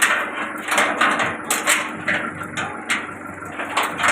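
Plastic scrap grinder running, with irregular sharp cracking and clattering as plastic is chopped, over a steady motor hum.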